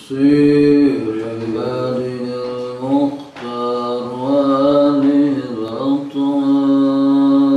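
A man's voice chanting in long, drawn-out melodic phrases whose pitch bends and slides, in the style of Islamic religious recitation, with short breaths between phrases.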